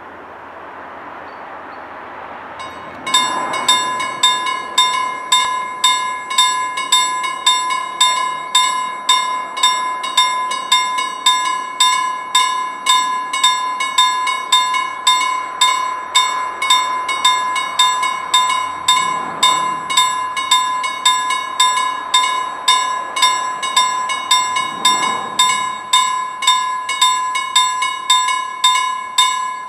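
Level crossing warning bell starting about three seconds in and then striking evenly, about one and a half strikes a second, over a steady ringing tone. The bell warns that a train is approaching.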